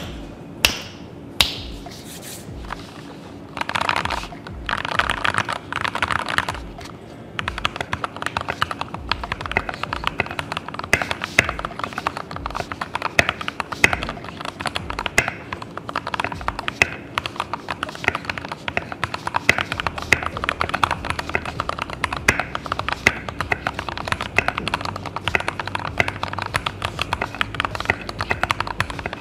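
Keys being typed on a Keychron V1 mechanical keyboard: a fast, uneven run of sharp keystroke clacks that starts about seven seconds in. Before it come a few single clicks and two short rustling rushes.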